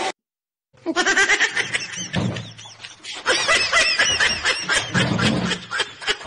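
A brief moment of silence, then people laughing hard in quick, repeated high-pitched laughs.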